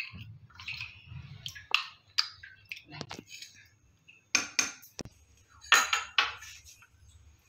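A metal spoon clinking and scraping against a small glass bowl while stirring cornflour slurry: a series of irregular sharp clinks, several in quick pairs.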